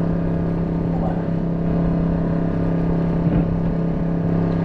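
Fishing boat's engine running steadily, a low, even hum.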